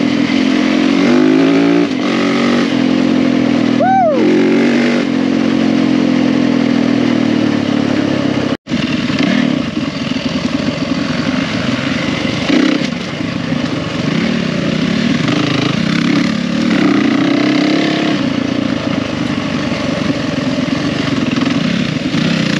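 Yamaha WR450F's single-cylinder four-stroke engine running hard on a dirt trail, its pitch stepping up and falling back as the rider works the throttle and gears, over a steady rush of wind and tyre noise. The sound drops out for an instant about eight and a half seconds in.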